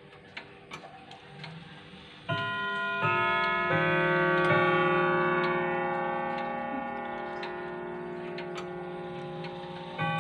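Junghans grandfather clock ticking, then about two seconds in its chime starts: a few notes struck one after another, each ringing on and slowly fading while the ticking carries on, with another note struck near the end. This is the clock's chime melody, which plays every quarter hour.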